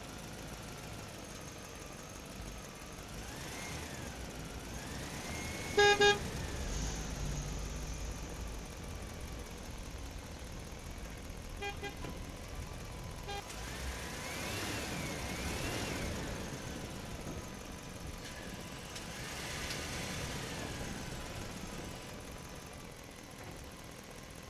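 Faint vehicle noise with slow rises and falls in pitch, broken by a loud short double horn toot about six seconds in and two faint toots later on.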